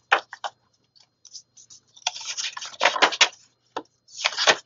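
Paper pages and card inserts of a ring-bound planner being turned and handled: rustling with light clicks, in several short bursts, the loudest about three seconds in and near the end.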